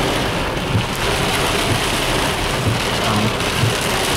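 Heavy rain falling steadily on a car's roof and windshield, heard from inside the car.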